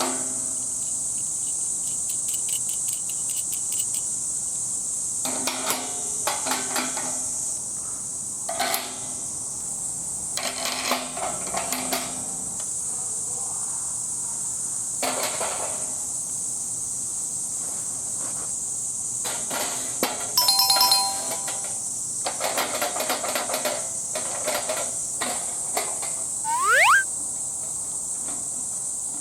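Steady high-pitched chirring of insects, with intermittent metallic clinks and clatter. About two-thirds of the way in, one bright, bell-like metal ring stands out.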